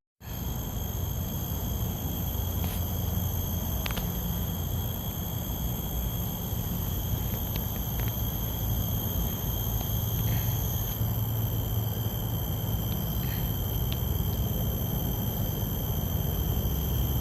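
Outdoor ambience of insects keeping up several steady high-pitched drones, one of which drops out about two-thirds of the way through, over a low rumble.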